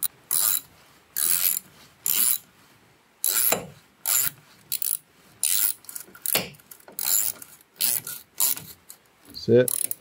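Socket ratchet wrench clicking in short repeated strokes, about one or two a second, as a nut on the mower's rear roller bracket is tightened.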